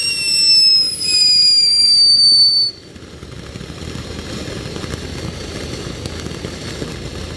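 Ground fountain firework whistling loudly, its shrill pitch slowly falling, until the whistle cuts off suddenly under three seconds in. The fountain then goes on with a quieter, steady hiss of spraying sparks.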